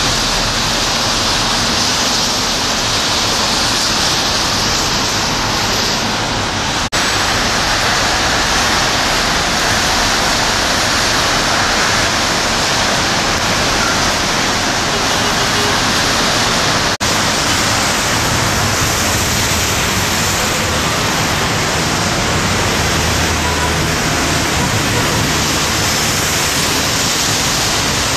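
Steady hiss of rain and traffic on wet roads. Two brief dips, about seven and seventeen seconds in, where the recording is cut.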